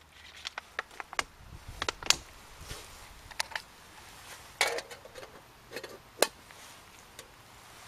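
Metal camp cookware being handled: a run of irregular sharp clinks and knocks, loudest about two seconds in and again just after six seconds, over a faint low steady rumble.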